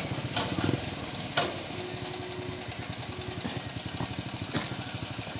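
Excavator's diesel engine running steadily with a fast, even beat, with three sharp knocks: one soon after the start, one about a second and a half in and one near the end.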